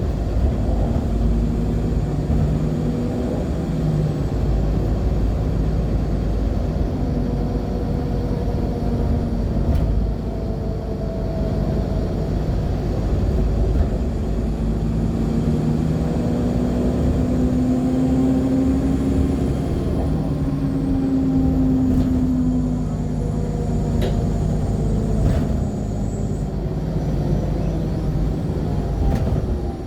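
Interior of a 2014 NOVA Bus LFS articulated hybrid bus on the move, with its Cummins ISL9 diesel and Allison hybrid drive running in a steady low rumble whose pitch rises and falls slowly with speed. A faint high whine rises and falls in the second half, and there are a couple of brief ticks near the end.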